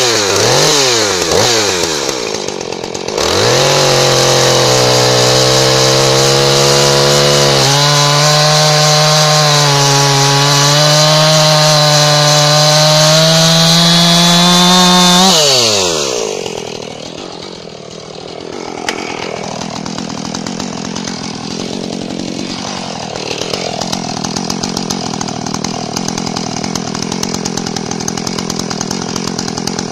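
Husqvarna 450e two-stroke chainsaw revved a few times, then held at full throttle cutting through a thick log for about twelve seconds, its pitch creeping slowly upward. About halfway through it drops off the throttle and idles steadily for the rest.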